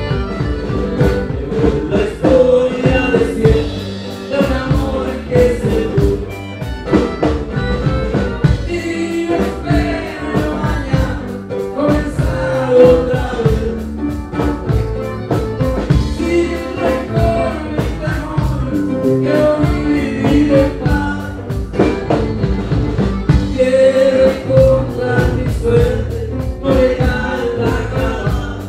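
Live norteño band playing a song with a male lead vocal. Accordion, twelve-string guitar, electric bass and drum kit play over a steady drumbeat.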